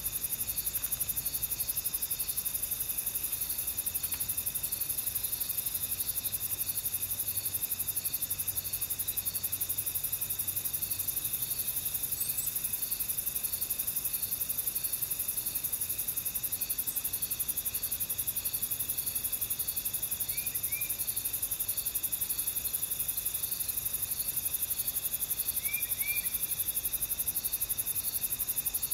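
Steady chorus of insects, high-pitched and continuous, with a regular pulsing note about one and a half times a second. A few short, faint chirps come in here and there.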